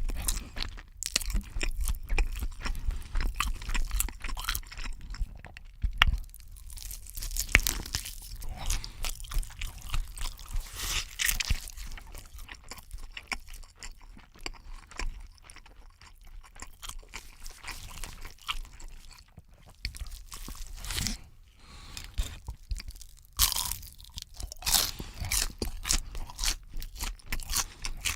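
Close-miked eating: crunchy fried chicken and other food being bitten and chewed, with many sharp irregular crunches and crackles.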